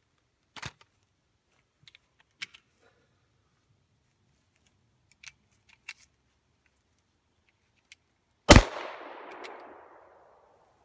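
A single pistol shot from a handheld semi-automatic pistol, about eight and a half seconds in, its echo dying away over about a second and a half. A few faint clicks come before it.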